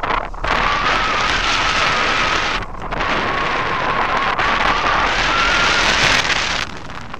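Rushing airflow buffeting the microphone of a camera mounted on a hang glider's wing in flight, with a faint high whistle wavering just above a kilohertz. The rush drops out briefly twice and eases near the end.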